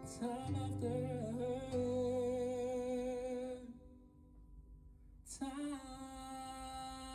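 A man singing long, held notes with vibrato into a microphone, with acoustic guitar accompaniment. About three and a half seconds in, the sound drops away for under two seconds before he comes back in on another long held note.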